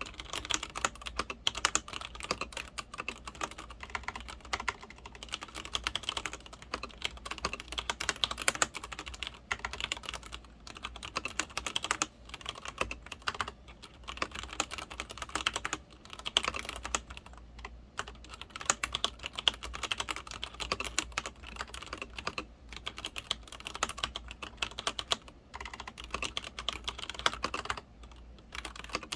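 Continuous fast typing on a Leopold FC900R-PD full-size mechanical keyboard with Cherry MX Red linear switches, a dense run of key clacks broken by a few short pauses.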